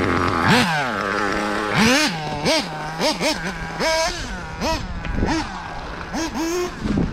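Small nitro glow engine of a 1/8 off-road RC buggy (Ultimate M5, 3.5 cc two-stroke) revving hard in quick repeated bursts, its pitch rising sharply and falling back about a dozen times as the throttle is worked.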